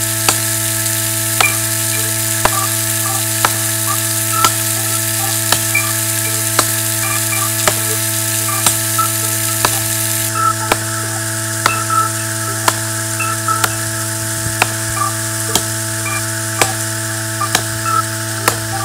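Hissing spray of water jetting under pressure from a leaking pipe fitting, over a steady low hum and a sharp tick about once a second.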